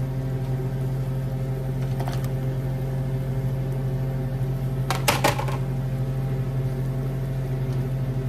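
Steady electric motor hum throughout. About five seconds in, a short clatter as slices of sponge gourd (patola) are tipped from a plastic colander basket into a metal frying pan.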